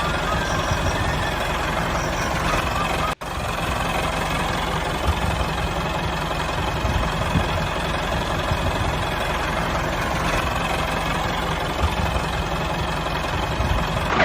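An engine running steadily, broken by a brief dropout about three seconds in.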